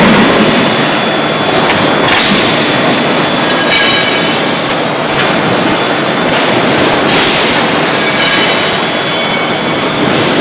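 CNC closed-die forging hammer at work: a loud, steady machine din with a heavier surge every one and a half to two seconds.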